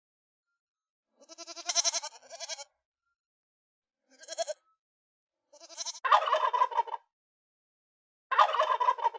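Goat kids bleating in several short calls, then from about six seconds in a turkey gobbling twice, each gobble about a second long.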